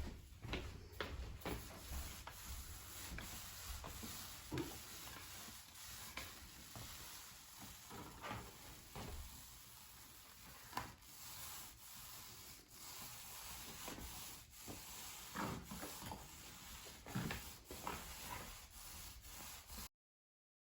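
Faint rubbing and scraping on the floor from sheet-vinyl flooring work, with a few light knocks scattered through it. The sound cuts off abruptly near the end.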